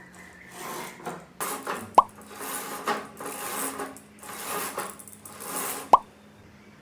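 Bead chain of a dual-layer (zebra) roller blind pulled hand over hand in about six strokes, rattling through the mechanism as the blind rolls up. Two sharp clicks land about two seconds in and near the end.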